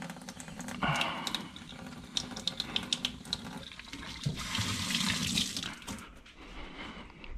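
Water running from a kitchen tap into a sink as hands are washed under it, with scattered small clicks.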